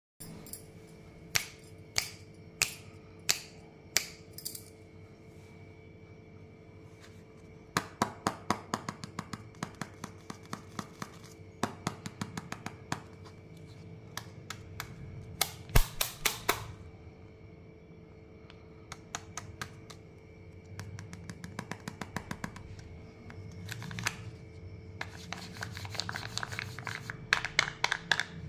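Plastic Kinder Joy egg shells handled and tapped, making sharp clicks: first a few evenly spaced, then quicker runs, with a loud crinkle about midway. Near the end comes a denser crinkling as the foil lid is peeled off an egg half.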